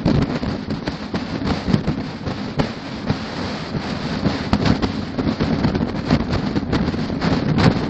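Wind buffeting an exposed camera microphone at highway speed: a heavy low rumble broken by constant crackling pops, over the hum of the moving rig.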